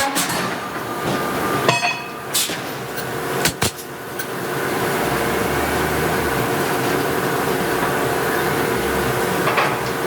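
Hydraulic forging hammer striking hot steel: a few sharp metallic blows in the first four seconds, one left ringing, then a lighter knock near the end. Under them runs a steady machine drone, with a low rumble joining about halfway.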